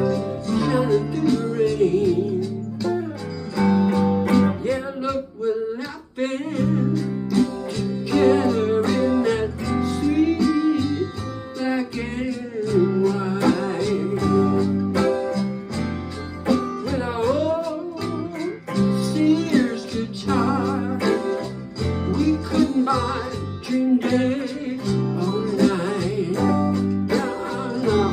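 Electric guitar and bass playing a song, with a man singing over them.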